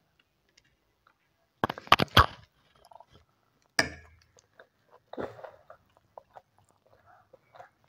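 A child eating noodles: a metal fork clicking and scraping against a ceramic plate, with a cluster of sharp clicks about two seconds in and another near four seconds. After that come softer slurps and chewing of noodles, with scattered small ticks.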